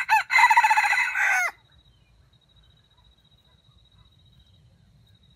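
Red junglefowl rooster crowing once, a crow of about a second and a half that falls in pitch at the end. A faint steady high tone continues after it.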